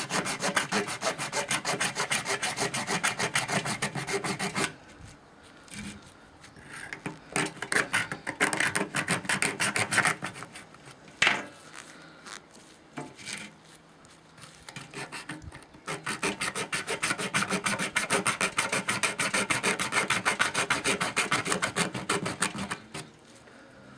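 Leatherman Blast multi-tool's saw blade sawing through a coconut shell in fast, even back-and-forth strokes. The strokes fall away to a few scattered ones in the middle, with a single sharp click, then pick up the fast rhythm again.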